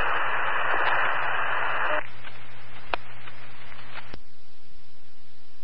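Fire department two-way radio heard over a scanner: a keyed transmission carrying only loud static hiss for about two seconds, then weaker hiss with two sharp clicks as the channel drops out.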